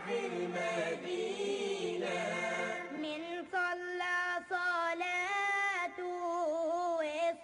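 Background vocal music: a solo voice chanting melodic lines, holding long, wavering notes.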